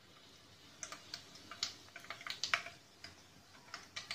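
Mustard and cumin seeds crackling in hot oil for a tadka: faint, irregular sharp pops that start about a second in. The spluttering mustard seeds show the oil is hot enough for the cumin.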